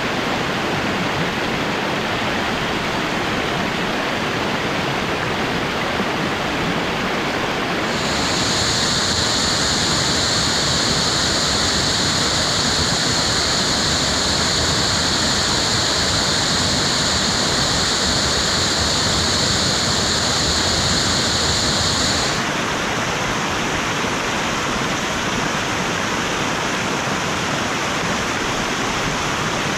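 Waterfall, a steady rush of water falling over rocks. From about eight seconds in until about twenty-two seconds, the rush turns brighter and hissier, then returns to its earlier tone.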